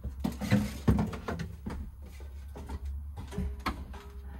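A string of light clicks, knocks and rattles as someone handles parts inside an open compact fridge. Underneath is a steady low hum.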